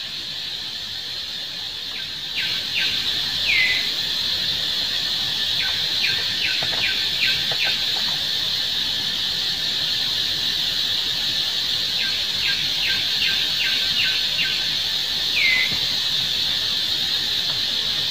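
Forest ambience: a steady high insect drone, with several runs of quick high chirps from a calling bird and, twice, a short falling squeak.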